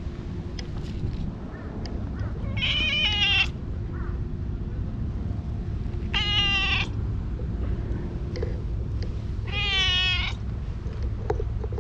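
Brown tabby-and-white cat meowing three times, each call under a second long, a few seconds apart.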